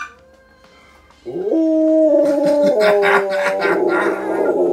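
Siberian husky howling in answer to a siren: one long howl that starts about a second in, rises quickly, then holds and steps slightly lower in pitch.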